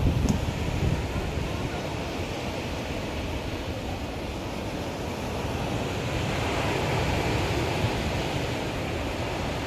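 Sea waves washing onto a beach, a steady rush that swells a little about six seconds in, with wind buffeting the microphone.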